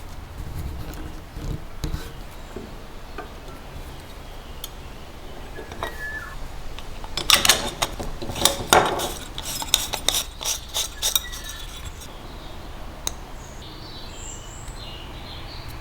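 Small metal parts clinking and clicking as they are handled, with a quick run of sharp clicks in the middle.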